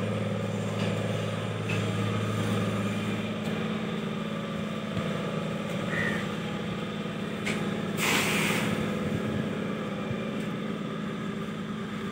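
An engine runs steadily with a low hum, and its lowest tone drops out about three seconds in. About eight seconds in there is a brief rushing splash as a cast net lands on the water.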